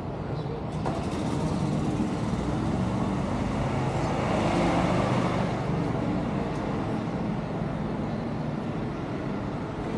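Street traffic: a vehicle drives past, rising to its loudest about halfway through and then fading.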